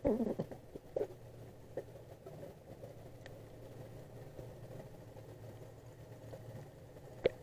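Muffled underwater sound: a steady low mechanical hum with several held tones, the drone of an engine carried through the water. A loud scuffing knock comes at the start and sharper knocks about a second in and near the end, as a conch shell is lifted and handled on the sandy bottom.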